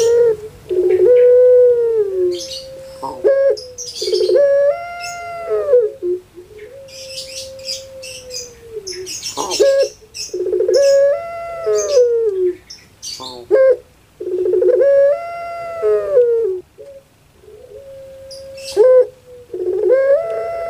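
Female puter pelung (ringneck dove) cooing in a rhythmic series of long coos a few seconds apart, each rising and falling in pitch: the 'crying' (nangis) style of coo. Short high chirps sound between the coos.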